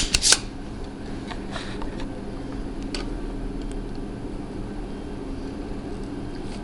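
Soldering-bench work: a quick cluster of sharp clicks right at the start, then a few faint single clicks, over a steady low hum.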